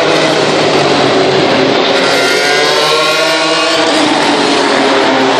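Formula One race car engines passing at speed at high revs, loud throughout, their pitch rising and falling as the cars go by and change gear.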